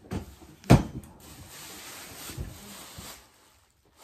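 A sharp knock from the ring light stand being handled and adjusted, followed by about two seconds of soft rubbing and rustling as the pole is worked.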